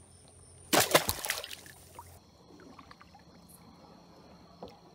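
A short noisy burst of splashing and scuffling about a second in, lasting under a second and tailing off, then quiet.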